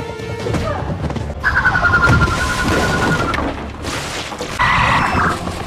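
Black Canary's sonic scream sound effect: a piercing, steady high tone lasting about two seconds over a crashing blast, then a shorter loud burst near the end.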